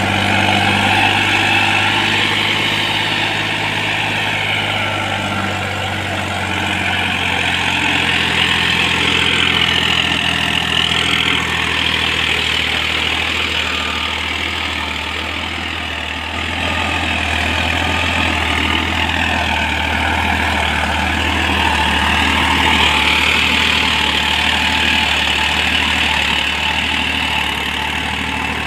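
Farmtrac 45 PowerMaxx tractor's three-cylinder diesel engine running steadily under load while pulling a leveller across tilled soil.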